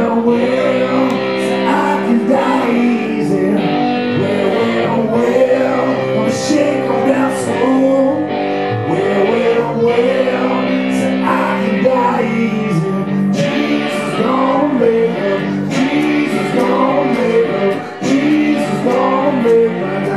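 A blues song played live: a hollow-body electric guitar played through an amplifier, with a man singing over it.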